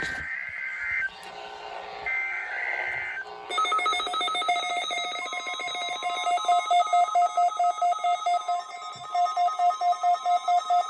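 NOAA Weather Radio weekly test signal. It opens with two roughly one-second screeching bursts of SAME digital header data, with a short gap between them. A weather radio receiver's rapidly pulsing, ringing alarm follows, and the steady 1050 Hz warning alarm tone joins it about five seconds in.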